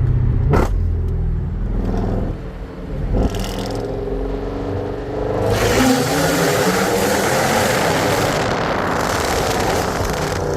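Mercedes-Benz C63 AMG W204's 6.2-litre V8 running and revving, with two short sharp cracks in the first few seconds. From about halfway the sound turns louder and rougher and stays that way.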